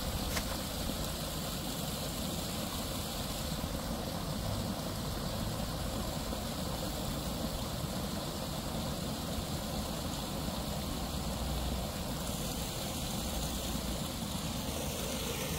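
Steady rushing and splashing of water pouring from a pipe outlet into a small stream pool, with a low rumble underneath. A single splash just after the start as a mesh fish trap lands in the water.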